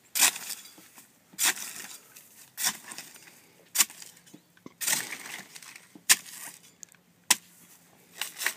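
A jimador's coa, a flat round blade on a long handle, chopping into the tough leaves of a blue agave. Eight crunching strikes a little over a second apart, each a short sharp hack.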